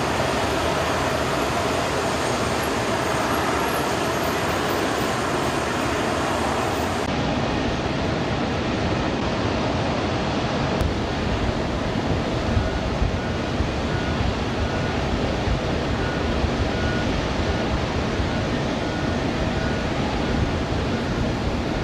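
Steady roar of a C-17 Globemaster III's four turbofan engines running on the ground. About halfway through, a faint high beep starts repeating about once a second.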